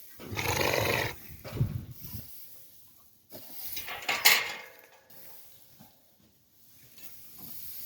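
A horse blowing hard through its nostrils: two long breathy snorts, the first about half a second in and the second near the middle.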